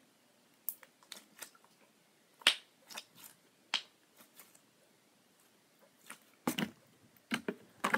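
Glossy homemade slime squeezed and stretched by hand, making short, sharp sticky clicks and pops in small clusters. A gap of about a second and a half comes just past the middle, and then a louder group of pops.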